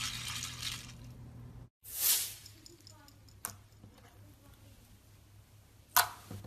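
Slime being played with by hand: dense crackly crunching for the first second and a half, then, after a brief cut, soft squishing with scattered clicks and two loud squelches, the second near the end.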